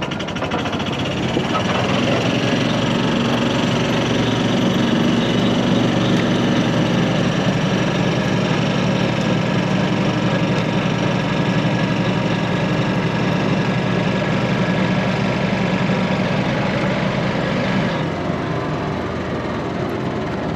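A vehicle's engine running while driving. It builds over the first second or two, holds steady, and eases off a little near the end.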